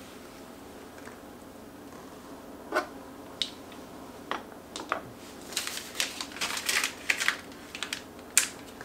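A few separate light clicks and taps, then a dense run of quick, crinkly rustling with sharp ticks over the last three seconds or so: a paper tissue being handled and rubbed over the fingers.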